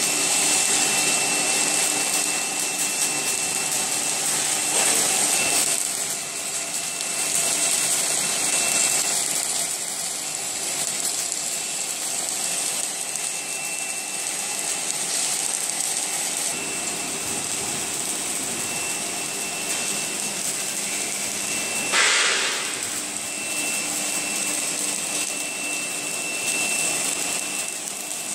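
Steady hum and hiss of an automatic submerged arc welding machine laying a seam along a steel beam, with a thin steady whine over it. A short, louder burst of noise about three-quarters of the way through.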